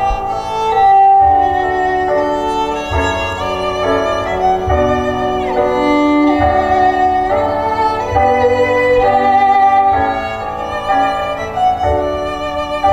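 Instrumental music: a sustained violin melody with a few sliding notes over a lower accompaniment.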